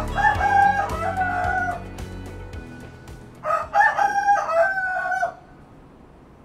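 A rooster crowing twice, each crow lasting under two seconds and the second starting about three seconds after the first. Background music plays under the first crow and fades out before the second.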